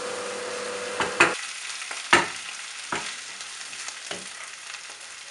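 Lamb curry masala frying in a pan with a steady sizzle, while a spoon stirs it and knocks against the pan about five times, loudest just over a second in and about two seconds in.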